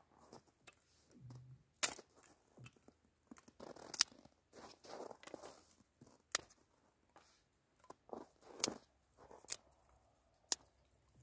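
Dry sticks being split and snapped for kindling with a knife: about half a dozen sharp cracks of wood, with the scrape of the blade on wood between them.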